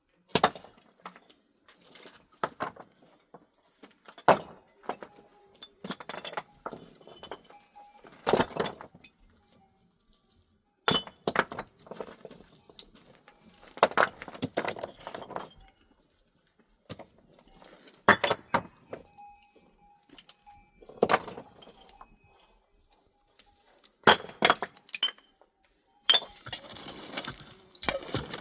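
Stones knocking and clacking against each other as they are handled and set: sharp knocks every second or two, with short pauses, and a busier patch of rattling near the end.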